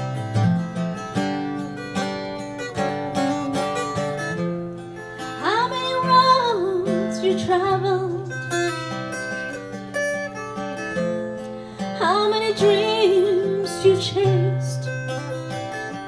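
Acoustic guitar played throughout while a woman sings, with two sung phrases, one about five seconds in and another about twelve seconds in.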